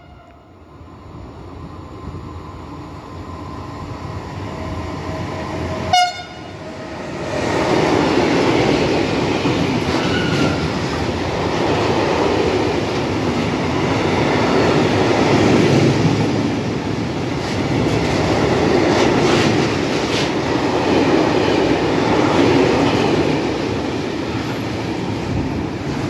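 A freight train hauled by an E483 electric locomotive approaches and passes, giving one short horn blast about six seconds in. A long train of hopper wagons then rolls by with a loud, steady rumble and wheel clatter.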